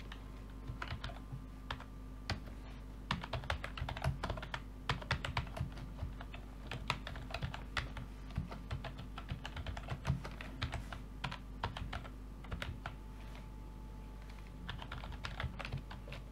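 Typing on a computer keyboard: irregular runs of quick key clicks with short pauses, over a faint steady hum.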